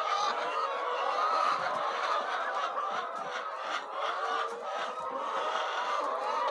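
A flock of chickens calling all at once: many overlapping peeps and clucks in a steady, continuous din.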